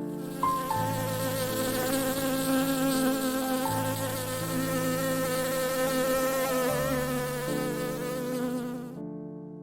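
A flying insect buzzing steadily close by, its pitch wavering slightly, then cutting off about nine seconds in.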